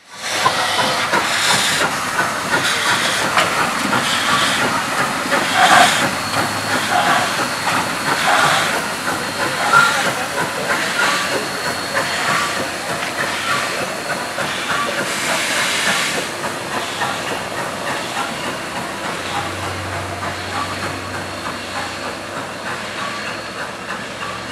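White Pass & Yukon Route steam locomotive No. 73, a 2-8-2, working a passenger train at low speed: a steady hiss of steam with slow exhaust chuffs about once a second. The chuffs ease off and the sound fades in the last third.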